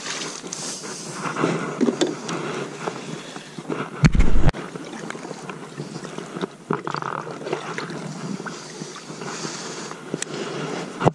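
A released largemouth bass splashes back into the water right at the start. Kayak paddle strokes then swish and drip through the water, with scattered knocks and one loud, low thud about four seconds in.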